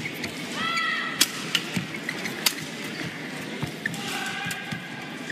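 Badminton rally: rackets hitting the shuttlecock in a few sharp cracks, about a second or so apart. Two short squeaks, one about a second in and another near the end, fit players' shoes on the court mat.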